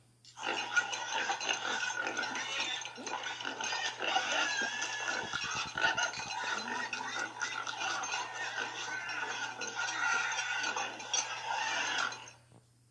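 People eating greedily: a dense run of slurping, smacking and chomping noises, starting about half a second in and cutting off just before the end.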